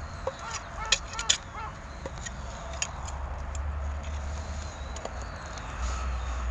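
Pine cones burning with an open flame in a clay shichirin charcoal grill, giving a few sharp crackles and clicks in the first second or two, over a steady low rumble.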